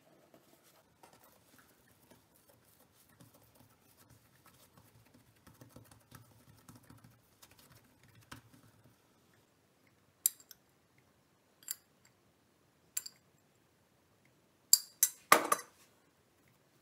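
Soft rubbing and patting of hands pressing bun dough flat on a countertop, then six sharp clinks of a utensil against a dish while the diced salami and cheese filling is added, the last three close together.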